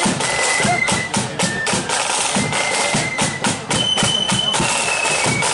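Marching flute band playing a high flute melody over rapid snare drum beats and bass drum.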